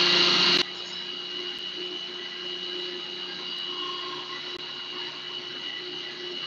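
Food processor motor running, spinning pesto while more basil is fed in through the feed tube. It drops sharply in loudness about half a second in, then runs steadily with a high whine over a low hum.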